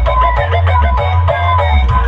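Loud music played over a sound horeg system (stacked high-power loudspeakers), with very heavy bass under a steady beat and a plucked melody.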